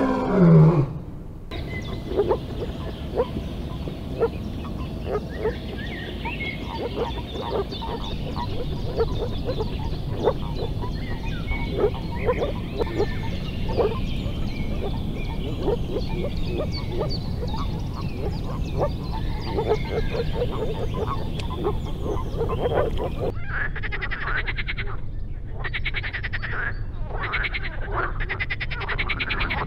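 The last of a lion's roar, then a chorus of moor frogs giving short, soft, repeated low calls. About 23 seconds in it changes to a marsh frog croaking in bursts of fast rattling pulses, its paired vocal sacs puffed out.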